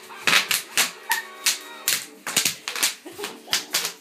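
Plastic bubble wrap popping under jumping feet: a rapid, irregular run of sharp snaps, about three or four a second.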